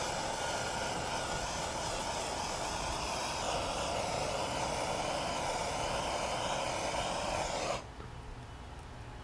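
Torch flame blowing steadily while it heats heat-shrink tubing over a crimped wire splice, stopping abruptly about eight seconds in.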